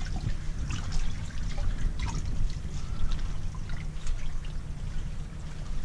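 Shallow water lapping and trickling, with many small splashes and drips, around someone wading thigh-deep among dock pilings, over a low steady rumble.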